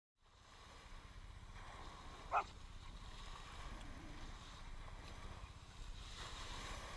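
Steady low rumbling background noise, like wind on the microphone, with one short high call about two and a half seconds in.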